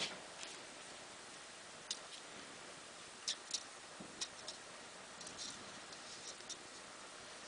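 Faint, irregular small clicks and light taps from hand-soldering bus wire onto solar cells.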